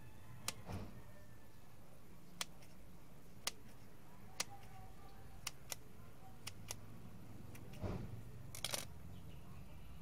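Hands handling a cloth shirt and small stickers on a wooden table: scattered sharp clicks and taps, about ten in all, with a cluster of clicks and a short rustle near the end.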